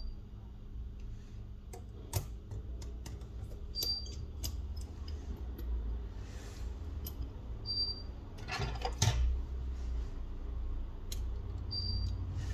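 Small hard clicks and taps of repair tools against a smartphone's plastic and metal parts during disassembly, with a quick run of clicks and rattles about two-thirds through. A short high chirp comes back about every four seconds over a low steady hum.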